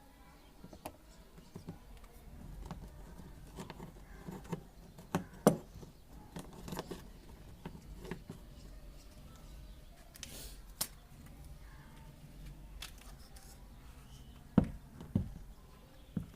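Scattered metal clicks, clinks and a few sharp knocks of hand tools and screws as a replacement washing-machine gearbox is fitted and screwed in place, with a brief hiss around the middle.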